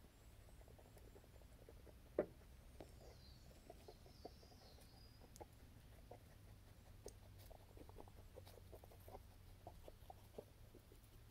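Near silence: faint outdoor ambience with scattered soft irregular ticks, one sharper click about two seconds in, and a faint high call a little after.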